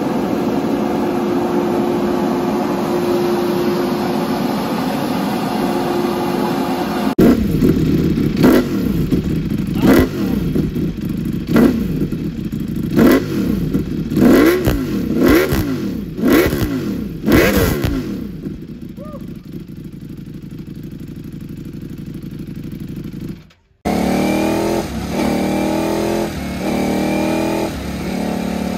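The 2023 Ducati Panigale V4R's 999cc 90-degree V4 idles steadily through a full titanium Akrapovic exhaust. Then comes a run of about eight sharp throttle blips, roughly one a second, before it settles back to idle. After a brief dropout, three more quick rises in revs follow.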